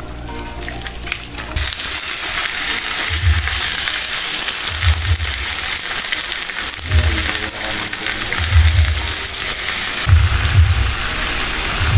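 A loud, steady hissing noise, starting about a second and a half in, with a low thump repeating about every second and a half.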